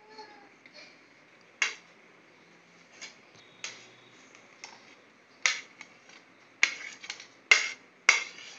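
A metal spoon clinking against a ceramic plate and bowl as chopped tomatoes are scraped into the bowl: about eight sharp, short clinks at irregular intervals, louder toward the end.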